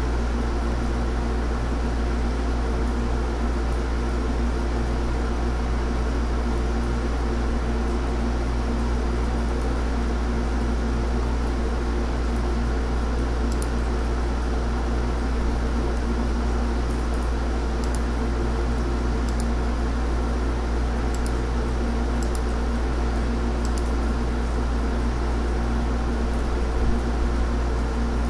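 Steady low electrical hum and fan-like whir, the background noise of the recording setup, most likely the desktop computer's fans. A few faint clicks come in the second half.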